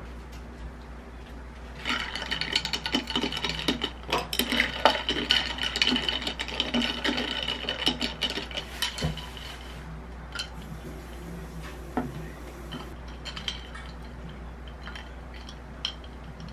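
Ice cubes clinking and rattling against a drinking glass as an iced café latte is stirred with a straw. A quick run of light clinks starts about two seconds in and stops about ten seconds in, and a few scattered clinks follow.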